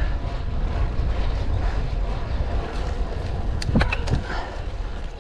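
Wind rushing over a camera's microphone on a moving road bike: a steady low rumble, with a few faint clicks about three and a half seconds in.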